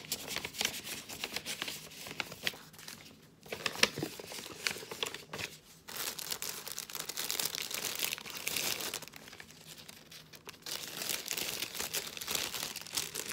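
Clear plastic bag crinkling and paper rustling as receipts and an envelope are handled and packed back into it, in irregular crackly handfuls with one sharper click about four seconds in.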